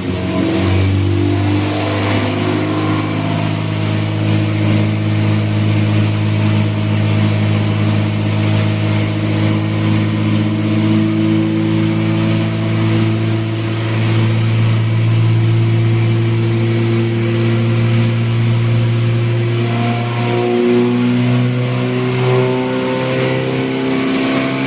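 Honda K-series four-cylinder engine in an EK9 Civic held at steady revs during a tune-up, its pitch stepping up and down a little near the end.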